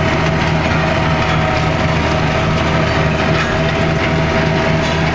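Tractor engine running steadily under load, pulling an Artsway 6812 eight-row sugar beet harvester, with the harvester clattering as it lifts beets.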